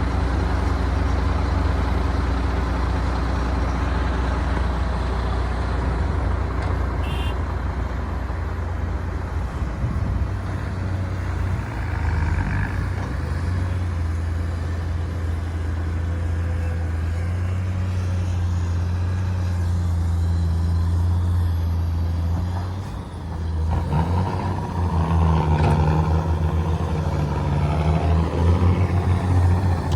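Heavy diesel engine of earthmoving machinery running steadily. It eases off briefly about 23 seconds in, then works harder and louder through the last few seconds.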